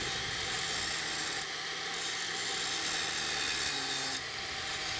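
Angle grinder grinding on the weld joint of a stainless steel pipe, a steady gritty grinding with a high hiss that grows stronger from about a second and a half in to about four seconds in.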